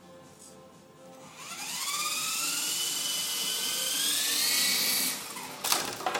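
Small coaxial electric RC helicopter spinning up for takeoff. Its motors and rotors give a whine that rises about a second in and then holds high and steady. The whine drops away near the end, followed by a brief clatter of sharp knocks.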